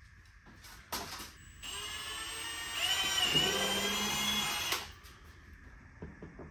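Cordless drill boring a hole through a plastic tailgate trim panel: a brief spin-up about a second in, then about three seconds of steady whining, louder with the pitch dipping as the bit bites, before it stops suddenly.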